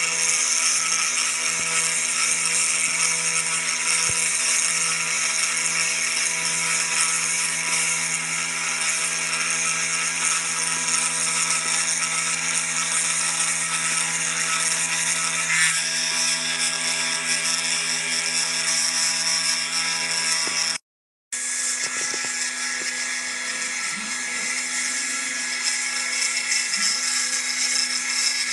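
Desktop CNC engraving machine's spindle running with a steady high whine as its engraving bit mills a hardwood plaque. The sound cuts out for about half a second around twenty seconds in, then carries on at a slightly different pitch.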